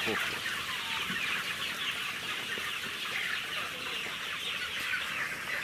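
A large flock of free-range chickens clucking all at once: a dense, steady chatter of many birds.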